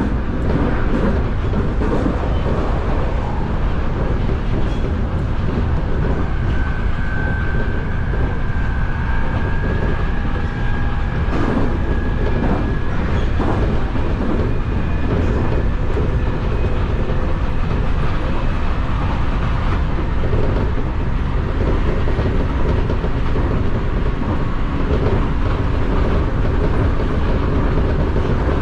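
Nankai electric train running at speed, heard from behind the driver's cab: a steady rumble of wheels on rail with occasional rail-joint clacks, and a thin high tone that holds for several seconds near the middle.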